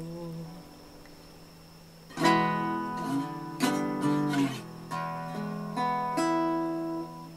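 A guitar being practised: a chord rings out and fades, a short pause, then about two seconds in strummed chords and single plucked notes start again, one after another, each left to ring.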